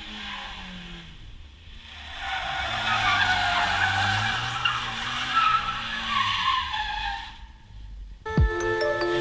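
Mazda Miata's four-cylinder engine revving up and down as the car drifts, tyres squealing and skidding on asphalt, with a short lull about a second and a half in. Music comes in about eight seconds in.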